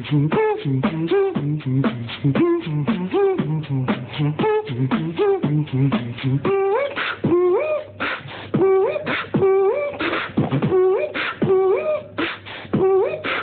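Beatboxing: one voice making a fast, even rhythm of drum-like clicks and thumps, with a pitched vocal line woven in. From about seven seconds in, the vocal line slides upward in short swoops, over and over.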